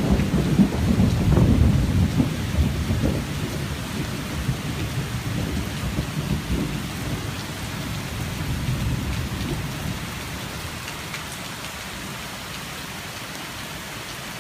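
Steady heavy rain with a low rumble of thunder that is loudest at the start and fades away over about ten seconds, leaving only the rain.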